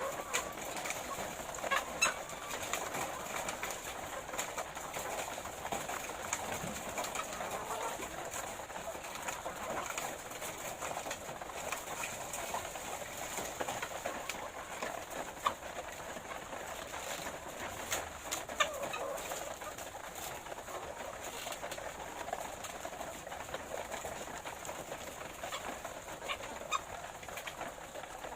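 A flock of laying hens making a steady, busy clucking murmur, with scattered short clicks and taps.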